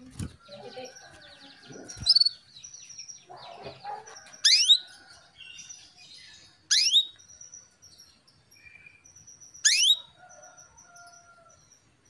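Female canary calling to a male: three loud, short calls, each sweeping steeply down in pitch, about two to three seconds apart, with softer chirps and twitters between them. A couple of soft thumps of wing flutters near the start.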